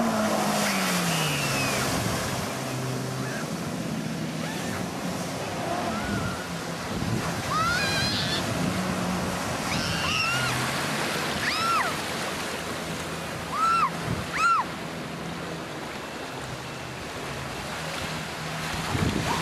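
Kawasaki STX-15F jet ski's four-stroke four-cylinder engine running, its pitch rising and falling as the throttle changes, over a constant hiss and rush of spray and water. Several short high squeals sound in the middle, the loudest near two-thirds of the way through.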